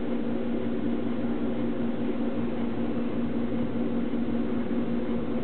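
Steady mechanical hum, like a fan or small motor running, with a low drone and a hiss over it that holds constant throughout.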